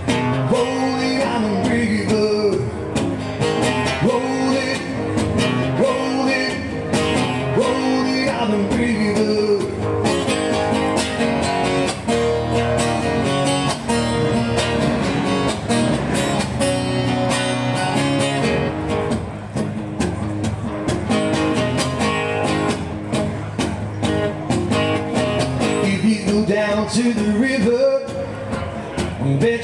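Live solo performance: a cutaway acoustic-electric guitar strummed in a steady rhythm while a man sings a pop-rock song into a microphone.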